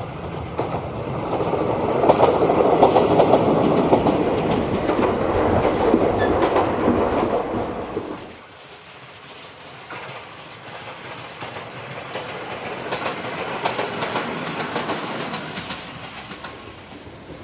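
Ichibata Electric Railway electric train passing, wheels clacking over the rail joints. The sound cuts off abruptly about eight seconds in, then a second train pass rises and fades away in the second half.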